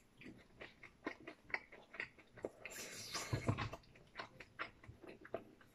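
A person chewing a mouthful of food with chopsticks in hand: a run of small wet mouth clicks and smacks, with a louder breathy sound about three seconds in.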